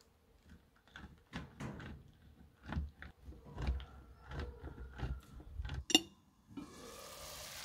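Block of cheese rasped down a stainless steel box grater in repeated strokes. About six seconds in comes a sharp clink of the glass pan lid being lifted, then a steady sizzling hiss from the uncovered pan.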